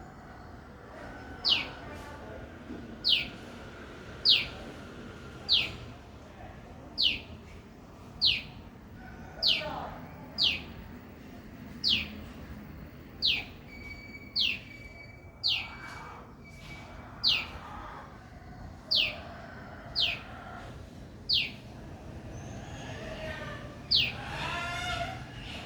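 A bird repeating a short, high whistled call that drops steeply in pitch, about once every second and a half, with fainter chirps from other birds behind it.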